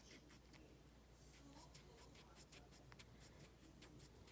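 Faint, quick scrubbing strokes of an alcohol swab rubbed over a plastic action-figure part, several strokes a second, to lift silver spray paint.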